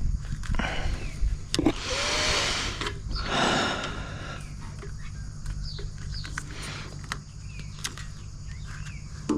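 Rustling and small clicks of hands working around a motorcycle's wiring and brake switch clip, with two louder stretches of rustling early on, over a steady low hum. Faint birds chirp now and then.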